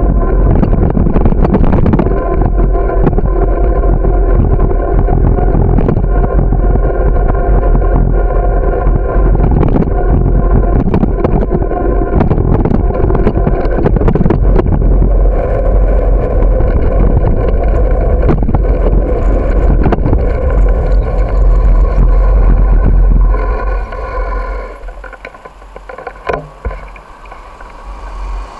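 Loud rumble and rattle picked up by a camera mounted on a moving bicycle, with many sharp clicks from the road surface. The noise drops off sharply about 23 seconds in.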